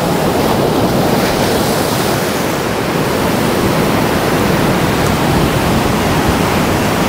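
Ocean surf breaking and washing up the sand, a steady loud rush, mixed with wind blowing over the microphone.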